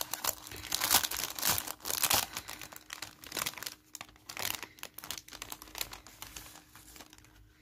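Clear plastic sachet crinkling as it is opened and handled, with paper die-cuts rustling as they are slid out. Irregular crackles, busiest in the first couple of seconds and thinning out towards the end.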